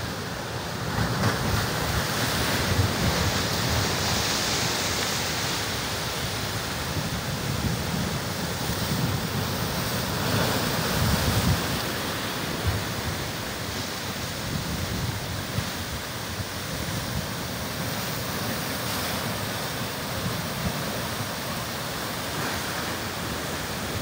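Atlantic surf breaking and churning over jagged rocks, a steady wash of white water that swells louder in surges a few seconds in and again near the middle. Wind buffets the microphone with a low rumble underneath.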